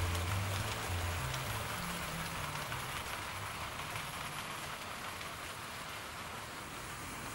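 OO gauge Hornby Stanier 4P 2-6-4 tank engine and its coaches running along the model track: a steady hissing rattle of wheels on rail that grows slowly fainter as the train draws away. Background music fades out about a second in.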